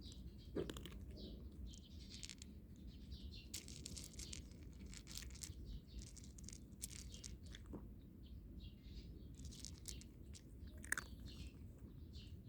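A cat crunching dry kibble, a quick run of small crackly bites, with birds chirping now and then in the background.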